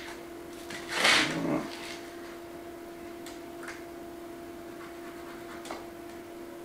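Hand-tool handling while measuring and marking out a wooden worktop: a brief rushing, rasping noise about a second in, then a few faint ticks, over a steady hum.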